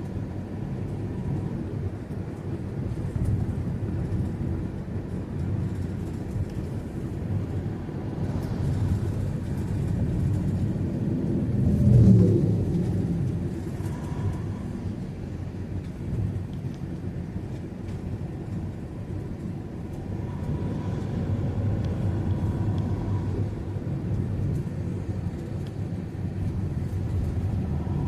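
Steady low rumble of road traffic, with one louder vehicle passing about halfway through, its engine note falling as it goes by.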